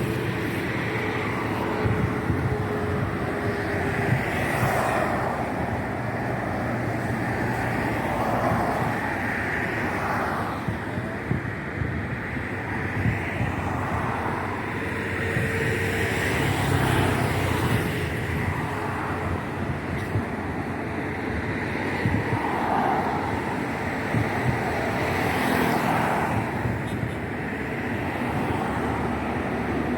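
Steady street traffic noise: a continuous wash of passing vehicles.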